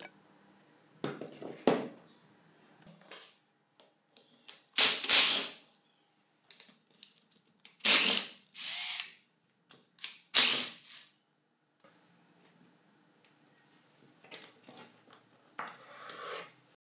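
Screws being backed out of a cordless impact wrench's aluminium gear housing with a screwdriver: a few short bursts of mechanical noise, the loudest about five, eight and ten seconds in. Near the end come quieter clicks and scraping as the gear housing comes off the motor body.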